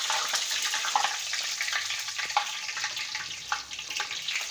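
Puri deep-frying in hot oil in a karahi, the oil sizzling steadily with small scattered crackles.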